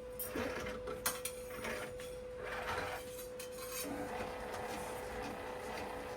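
A few light metallic clinks of cutlery against a dish, about a second in and again after three seconds, over the steady hum of a Rotimatic roti-making machine running.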